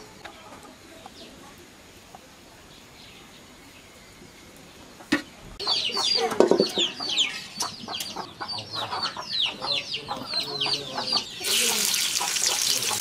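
Chickens clucking with many quick high chirps for several seconds after a quiet start. Near the end, sliced onions dropped into hot oil in a wok set up a steady sizzle.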